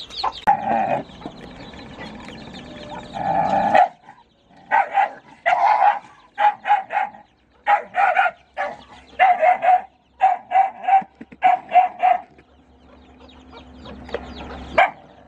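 A dog barking over and over: a string of short, sharp barks, several a second in small groups, stopping a few seconds before the end. Before the barking there are a few seconds of a steadier, drawn-out sound.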